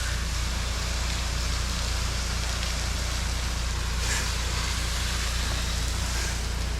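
Pressure washer's engine running steadily with a constant low hum, under the hiss of water spraying from the wand as the cleaning solution is downstreamed onto a screened pool cage.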